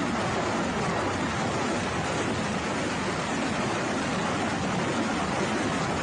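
Truck-mounted multiple rocket launchers firing a salvo: a continuous, steady rushing noise of rockets leaving the tubes in quick succession.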